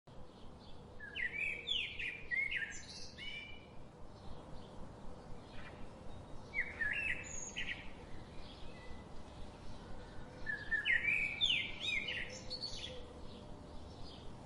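A songbird singing three phrases of quick, high chirped notes, about a second in, midway and again near the end, with fainter birds calling between them.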